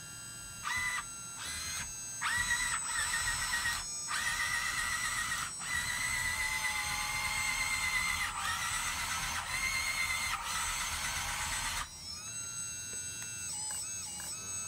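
Hydraulic pump motor of a Huina 580 RC excavator whining as the boom and bucket are worked from the transmitter: a short burst first, then a long run broken by brief pauses, its pitch sagging for a few seconds midway as it comes under load. It stops suddenly near the end.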